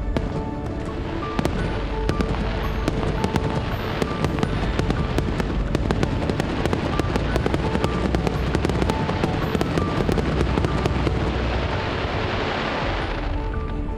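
Aerial fireworks bursting in quick succession, many sharp bangs with dense crackling that thickens near the end and then thins out, over background music.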